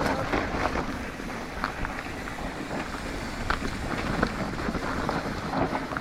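Yeti SB150 mountain bike riding over a rough dirt trail: wind rushing across the microphone, with tyre noise and frequent short clicks and rattles from the bike over the ground.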